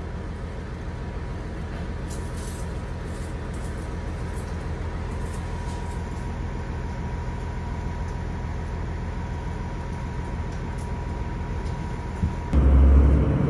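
A diesel vehicle engine idling with a steady low hum and a faint steady whine. About twelve and a half seconds in it revs up suddenly and much louder.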